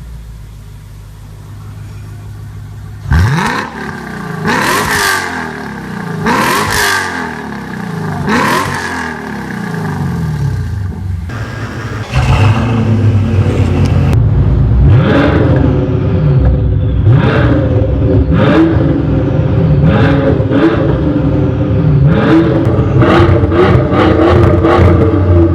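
Sports car engines with Armytrix performance exhausts being revved. One car idles, then is blipped four times about two seconds apart; about twelve seconds in, a cut brings a louder car revved over and over, roughly one blip a second.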